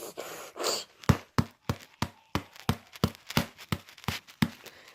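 Hands smacking hard on a foam squishy toy in an angry, rapid series of about a dozen sharp slaps, some three a second, after a short huff of breath.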